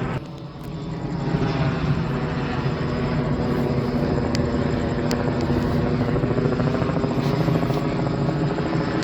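Police helicopter circling overhead, its rotor and engine running with a steady drone and a fine chop. The sound dips for a moment about half a second in, then holds steady.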